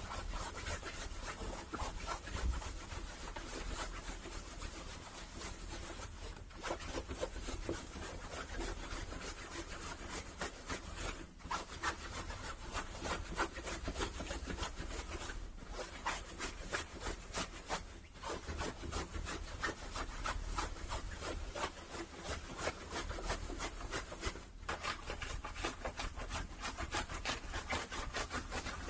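Fast, continuous scratching and rubbing of fingers on clothing fabric, a close-up clothing ASMR trigger. It breaks off briefly a few times between runs of strokes.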